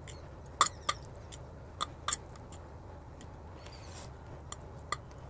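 Small seasoning sachet of sesame or seaweed topping crinkling and crackling in the hands as it is opened and its flakes added to the noodles, in sharp, irregular clicks spread over several seconds.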